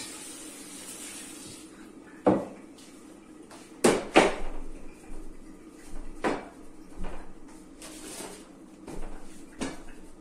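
Kitchenware being handled: several separate sharp knocks and clatters of pots, dishes or cupboard doors, the loudest around two and four seconds in.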